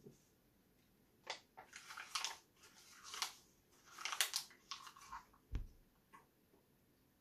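A folded sheet of printed paper crinkling and being bitten and chewed: a close run of crisp rustles and crunches lasting about four seconds. A single low thump follows about five and a half seconds in.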